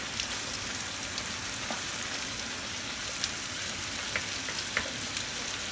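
Food frying in hot oil in a pan: a steady sizzle with scattered small pops and crackles.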